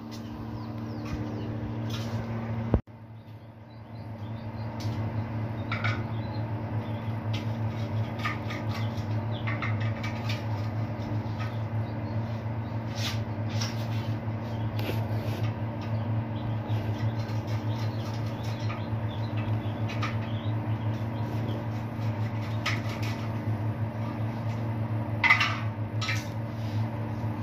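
Scattered light clicks and knocks of hand work on PVC conduit, clips and a plastic switch box, over a steady low hum. There is one sharp knock about three seconds in, and a cluster of louder clicks near the end.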